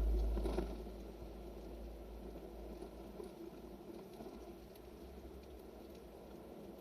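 Road and tyre noise heard inside a 2018 Nissan Leaf's cabin while driving, a steady low hum with no engine note. A deep rumble at the start dies away over the first second.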